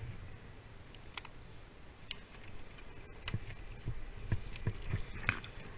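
Rope access hardware being handled: light metallic clicks and clinks of carabiners and the rope device at the harness, with a run of dull knocks, most of them in the second half.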